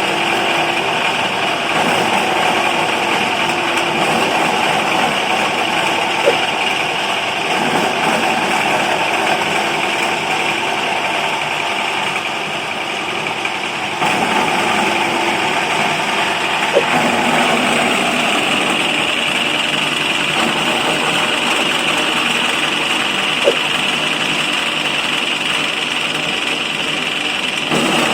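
KM BR03 electric bread-grinding machine for breadcrumbs running steadily, with a dip in level about halfway through and three short sharp ticks spread over the run.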